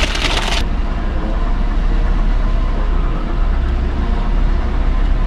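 Car engine idling with a steady low rumble. About half a second of paper-bag rustling at the very start.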